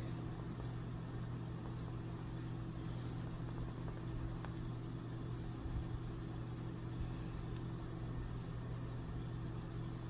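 Steady low hum with a faint, even hiss above it.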